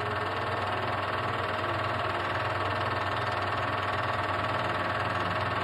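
Film projector running: a steady mechanical whirr with a fast, even flutter.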